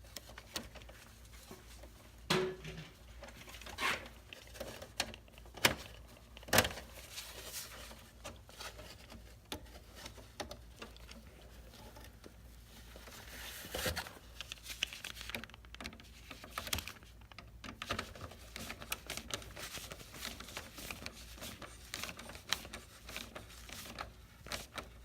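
Scattered clicks, light knocks and rustling of hands and tools working the black hot wire onto a breaker in an electrical panel. There are a few sharper knocks in the first seven seconds and a brief rustle about halfway through.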